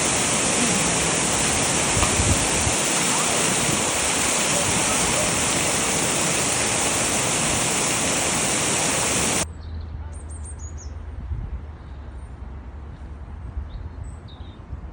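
A loud, steady rushing noise that cuts off suddenly about nine and a half seconds in. After it comes a much quieter outdoor background with a low hum and a few faint bird chirps.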